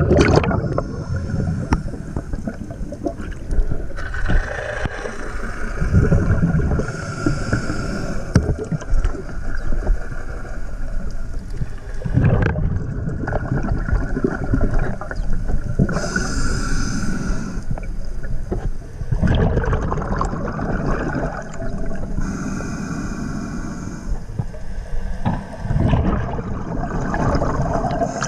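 Scuba diver breathing through a regulator underwater: a hissing inhale every few seconds, then the low, rushing gurgle of exhaled bubbles.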